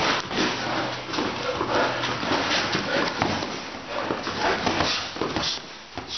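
Boxing sparring at close range: padded gloves landing on gloves and bodies, and shoes shuffling and scuffing on a foam mat, heard as a string of irregular thuds and scuffs.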